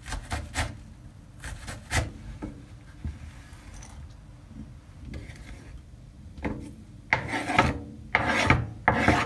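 Kitchen knife cutting on a cutting board: several light knocks in the first couple of seconds, then three longer, louder drawn strokes near the end.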